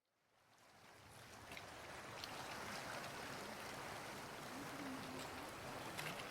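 Steady rush of moving water, fading in over the first couple of seconds, with a few faint ticks.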